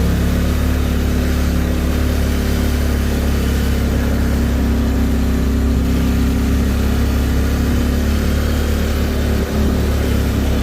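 Polaris off-road vehicle's engine running steadily while it rides along the trail, with a brief drop in level about nine and a half seconds in.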